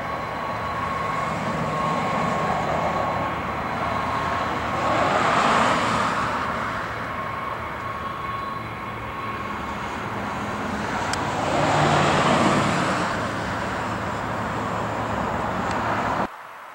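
DC-10 air tanker's three turbofan jet engines running as it taxis: a steady high whine over a roar that swells twice, about five seconds in and again about twelve seconds in. The sound cuts off suddenly near the end.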